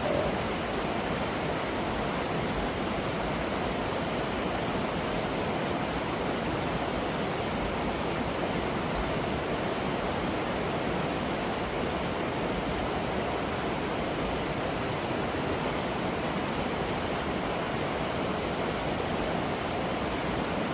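Waterfall rushing: a steady, even roar of falling water with no break or change.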